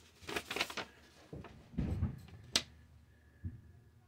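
Packaging being handled on a tabletop: rustling at first, then a few soft thumps and one sharp click about two and a half seconds in.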